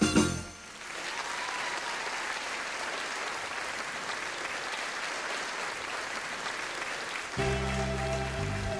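Theatre audience applauding after the band plays its final chords at the end of a song. About seven seconds in, band music starts again with a steady bass line.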